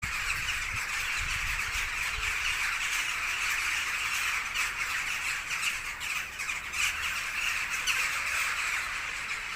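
A large flock of birds calling together in a dense, continuous chatter of overlapping squawks.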